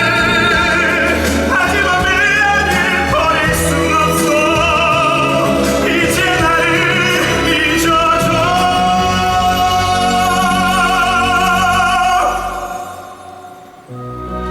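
A musical theatre song: a singer with a wide vibrato over orchestral accompaniment, building to a long held final note that ends about twelve seconds in. The music fades, and new music begins near the end.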